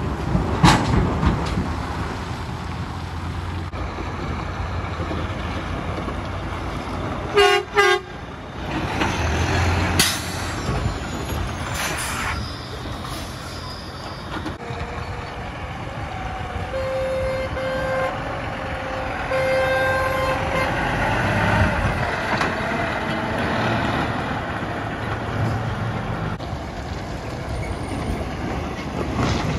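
Heavy diesel trucks driving past at close range, with their engines running under load. A short truck horn blast sounds about a quarter of the way in, and horn-like tones come and go near the middle.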